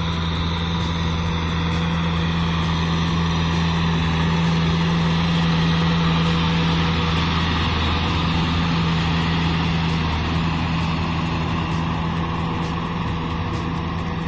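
Kubota M6040SU tractor's four-cylinder diesel engine running steadily under load while pulling a rotary tiller through flooded paddy mud. It grows louder toward the middle as the tractor comes close, then eases off slightly near the end.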